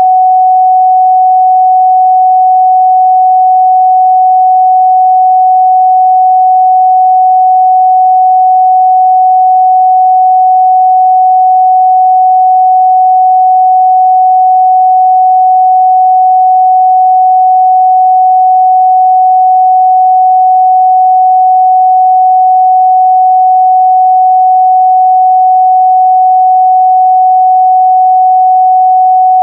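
A steady, loud 744 Hz sine-wave test tone, one pure pitch held without change.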